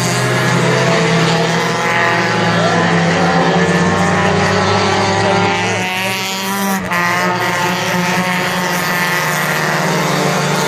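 Several mini stock race cars running laps together on an oval track, their engines loud and held at high revs. The pitch rises and falls in the middle as cars pass by.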